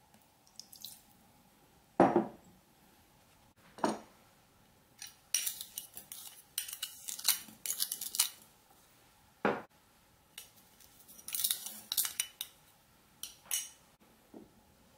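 Glass prep bowls and a metal spoon clinking on a stainless steel saucepan and the worktop. There are three sharp knocks, about two, four and nine and a half seconds in, and two runs of quick clinks and scrapes as a spoon scrapes and taps inside a small glass bowl.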